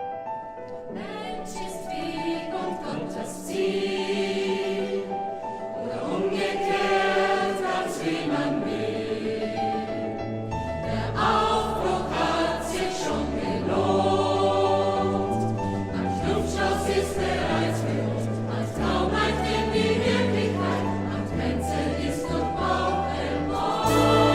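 Choir singing sustained chords with musical accompaniment, swelling gradually in loudness, with a deep bass line coming in about halfway through.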